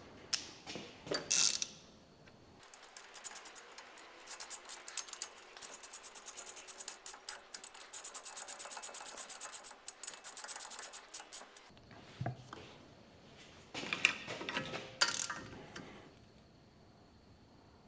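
Hand socket ratchet clicking in quick, even runs while nuts are worked on, with a few metallic clanks of tools and parts before and after.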